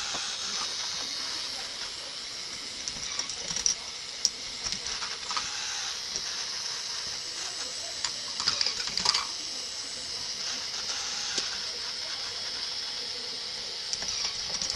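Balls running through a K'nex ball machine: scattered small plastic clicks and rattles, busiest about eight to nine seconds in, over a steady high hiss.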